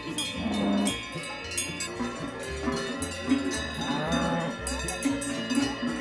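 Many large cowbells clanging and ringing at different pitches as a herd of cattle walks past, with occasional mooing.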